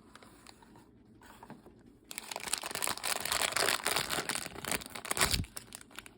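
Blind-box packaging being opened by hand: crinkling and tearing of the wrapping, starting about two seconds in and running for about four seconds, with a dull thump near the end.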